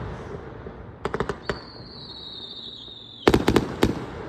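Fireworks going off: a few sharp cracks about a second in, a thin high whistle that falls slightly in pitch for nearly two seconds, then a loud quick cluster of bangs.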